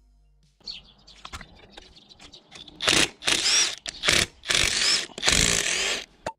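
A handheld power tool run in about four short, loud bursts during a motorcycle teardown, after some lighter clinks and rattles of parts being handled.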